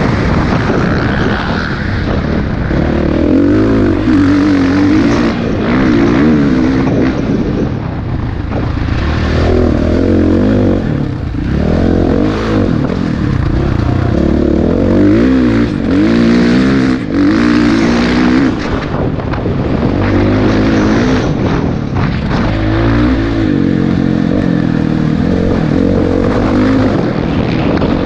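Motocross dirt bike engine heard from an on-board camera, revving up and falling back over and over as the rider accelerates, shifts and backs off around the track.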